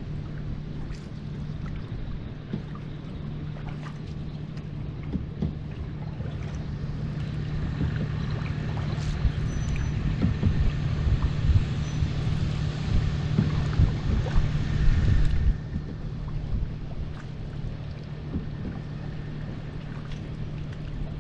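Small boat under way on a river: water washing against the hull over a steady low hum, with wind on the microphone. A louder rushing stretch runs through the middle for about eight seconds.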